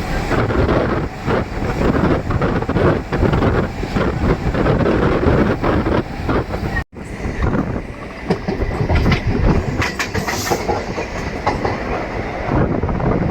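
DEMU express train running, heard from on board: steady rumble with wheels clattering over rail joints. The sound cuts out abruptly for an instant a little before the middle, then resumes.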